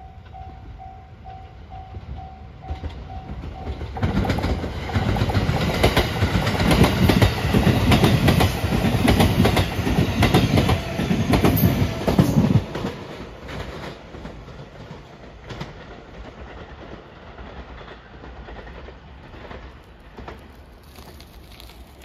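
A level-crossing warning bell pulses with a steady ding-ding. About four seconds in, the Marine Liner rapid electric train passes close by at speed, its wheels clattering rhythmically over the rail joints, loud for about eight seconds. It then fades to a low rumble as it runs away.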